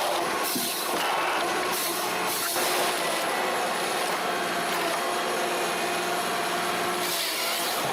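Heavy machine engine running steadily, with brief harsher noisy patches in the first few seconds.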